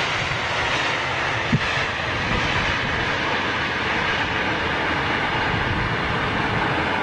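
Jet airliner landing with its engines in reverse thrust through clamshell-type reversers: a steady, loud rushing noise.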